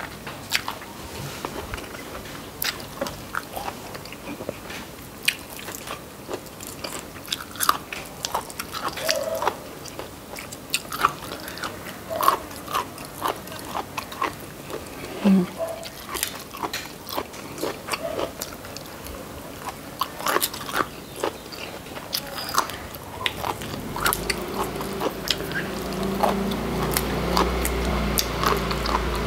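Close-up eating sounds: chewing and biting with many small sharp clicks and snaps, some of them from stink-bean (sataw) pods being split open by hand. Near the end a low steady motor drone rises underneath.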